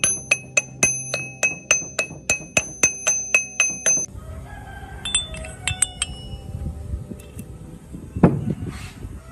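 Hammer blows on a steel gear being driven onto its shaft in a cast-iron gearbox housing: a fast, even run of sharp ringing metal strikes, about four a second, that stops abruptly about four seconds in. After that come light clinks of steel gears and parts being handled, and a single dull thud near the end.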